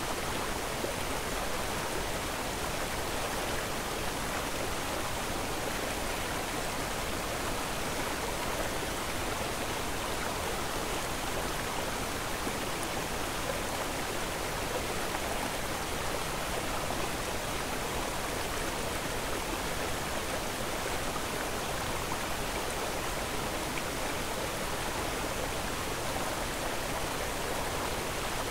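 Steady, even rushing noise, unchanging throughout, with no separate sounds standing out.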